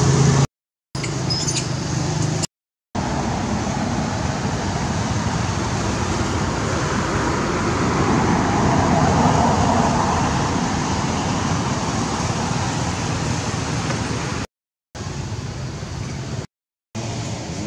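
Steady road traffic noise, swelling as a vehicle passes about halfway through, with the sound cutting out to silence four times for a fraction of a second.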